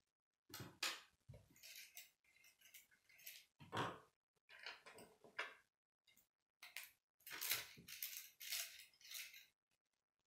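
Plastic K'nex rods and connectors clicking and clattering as they are handled and pushed together, in short bursts with brief silent gaps.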